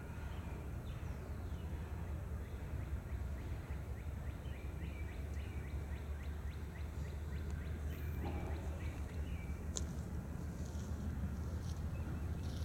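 Low, steady rumble of the distant diesel locomotives of an approaching intermodal freight train. Over it, a bird gives a rapid series of short chirps for the first half.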